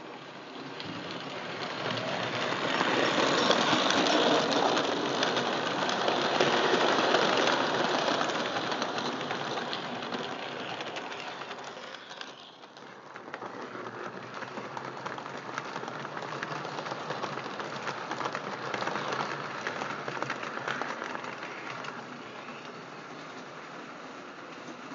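Lionel O-gauge toy train running on three-rail track: a steady rumble and clatter of wheels and motor. It swells as the train runs close, drops off suddenly about halfway through, then builds again and slowly eases off.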